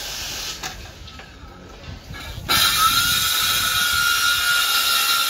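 A handheld electric power tool switched on about halfway through, its motor spinning up to a steady high whine over a loud rushing noise.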